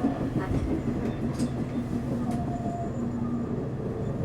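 Train running, a steady rumble with a low hum and a few faint clicks.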